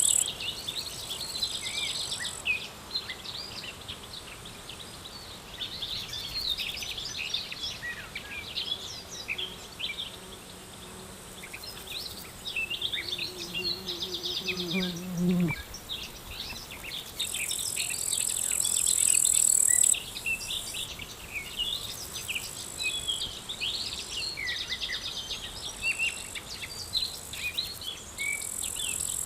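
Outdoor summer ambience: many small birds chirping and twittering, over insects trilling in a high steady pitch that starts and stops in spells. About twelve seconds in a low buzz swells for a few seconds and cuts off suddenly about fifteen seconds in.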